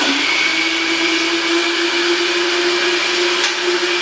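Countertop blender running steadily, its motor humming as it blends a thick milkshake of milk, vanilla ice cream and banana.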